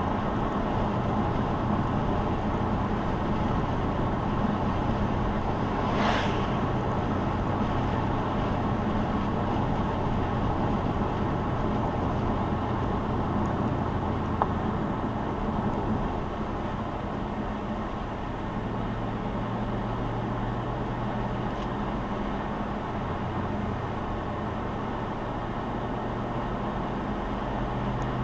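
A car cruising on the road: a steady engine drone under road and tyre noise. There is a brief rush of noise about six seconds in, and past halfway the engine note settles lower and the sound gets a little quieter.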